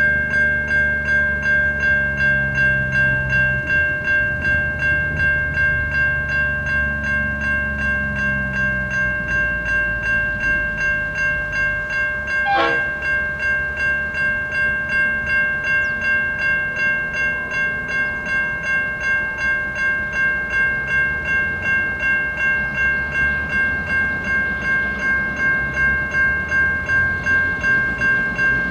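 Level crossing warning bell ringing steadily at about two strikes a second while a diesel train rumbles through the crossing. There is one brief sharp knock about halfway through.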